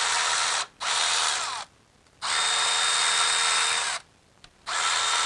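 Milwaukee cordless ratchet running in four short bursts with brief pauses between them, spinning out the 12 mm bolts at the camshaft sprocket.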